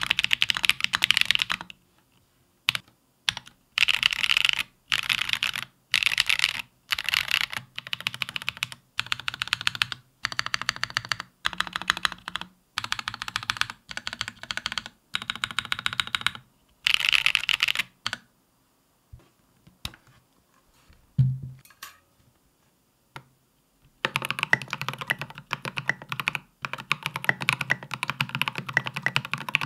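Typing in bursts on a custom 65% mechanical keyboard (Bear65) with Holy Panda tactile switches and tall SA-profile Godspeed keycaps, each keystroke a crisp clack. After a pause broken by a single low thump, typing resumes near the end on a second board (Space65) with Polaris Gray switches.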